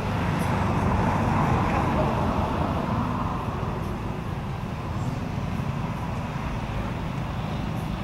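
Steady outdoor rumble like passing road traffic, swelling about a second and a half in and easing off after a few seconds.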